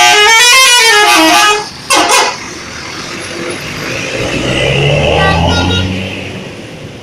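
Bus telolet horn playing a quick multi-note tune that climbs and then falls in pitch, with a short second blast about two seconds in. A heavy vehicle's engine then swells and fades.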